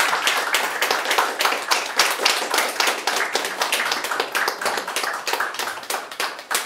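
A small audience applauding with many fast, overlapping hand claps, thinning out near the end.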